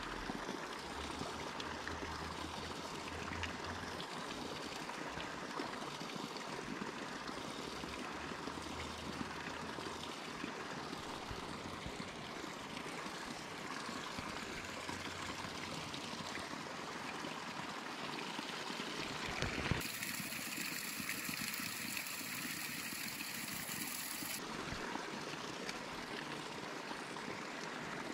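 Steady rushing and trickling of a mountain stream flowing over rocks, with a single knock about twenty seconds in.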